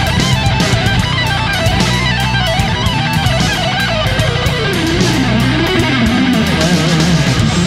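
Background music: electric-guitar rock with a wandering lead guitar line over a steady beat.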